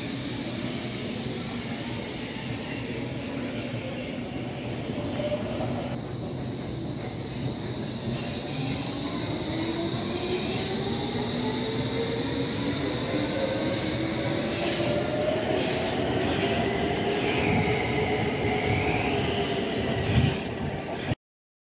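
Stockholm metro train running through an underground station. From about a third of the way in, its electric traction motors whine steadily upward in pitch as it accelerates, over a constant high-pitched tone. The sound cuts off abruptly just before the end.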